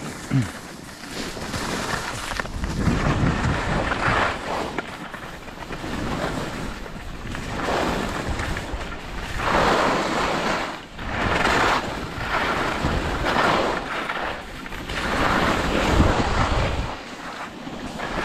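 Wind buffeting the microphone of a snowboarder's helmet or body camera while riding down a slope, with the snowboard's edge scraping over the snow in surges every second or two as the board turns.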